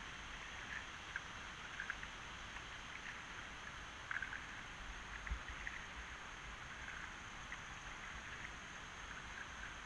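Kayak paddle strokes on calm water: small irregular splashes and drips off the paddle blades over a faint steady wash, with a low knock about five seconds in. The sound is muffled by the camera's waterproof housing.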